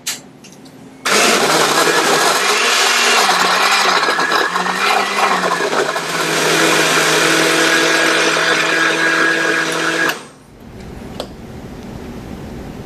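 Electric countertop blender: a click, then about a second later the motor runs loud at high speed for about nine seconds, its pitch wavering a few times before holding steady, then it is switched off.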